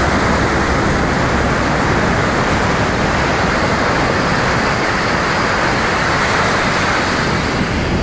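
A steady, even rushing noise with no distinct sounds in it.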